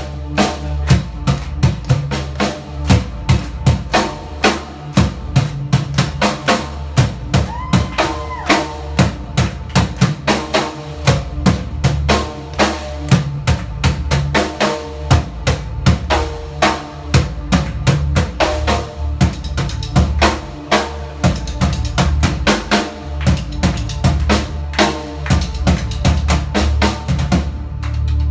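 Live band music: a standing drummer hitting drums with sticks in a steady, driving beat over held keyboard notes and a deep low note. Near the end the drumming stops and the low held note carries on.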